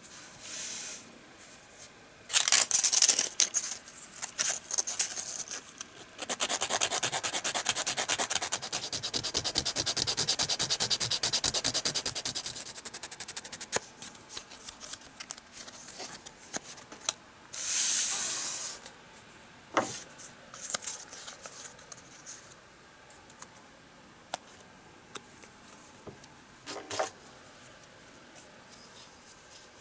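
Sandpaper rubbing on a small cypress-wood lure body in quick back-and-forth strokes, in several bouts with pauses between them; the longest bout runs for about seven seconds.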